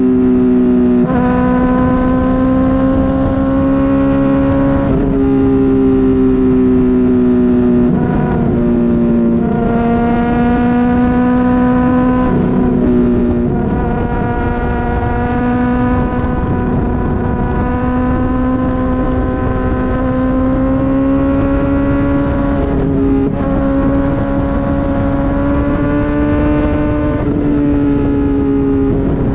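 Honda CBR600RR's inline-four engine running at steady high revs, its pitch held nearly level and creeping slowly upward, with short changes in tone every few seconds.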